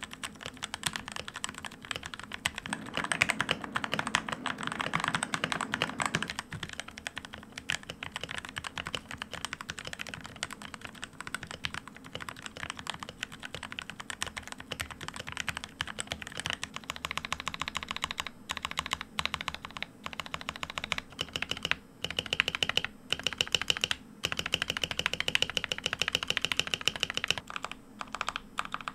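Continuous fast typing on an AZIO Tera75 75% keyboard in stock form: Gateron Brown tactile switches under single-shot ABS OEM keycaps, in a plastic case with its factory dampening and stock-lubed stabilizers. A dense run of keystroke clacks that is fuller and louder for a few seconds near the start.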